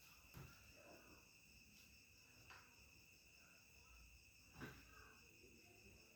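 Near silence: a faint steady high-pitched hum or chirr throughout, with three soft knocks about half a second, two and a half and four and a half seconds in.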